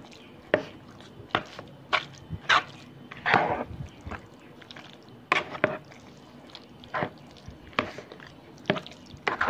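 A spoon stirring and folding mayonnaise-coated macaroni salad in a bowl: wet squelches and sharp clicks of the spoon against the bowl, irregular, about one a second.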